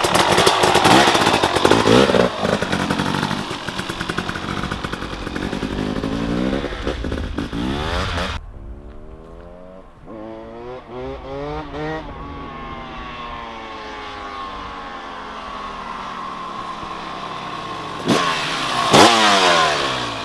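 KTM 300 XC TBI two-stroke dirt bike engine revving hard and riding close by. About 8 seconds in the sound changes abruptly and the engine goes on quieter, its pitch sliding down and back up as the throttle opens and closes, then a loud rising rev close by near the end.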